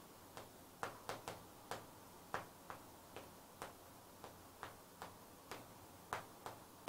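Chalk tapping on a chalkboard while an equation is written: a faint, irregular run of short clicks.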